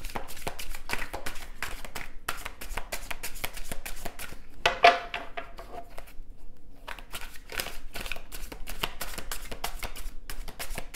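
A deck of tarot cards being shuffled by hand: a rapid run of flicking, clicking card sounds, with one louder clack about five seconds in and a short lull just after it.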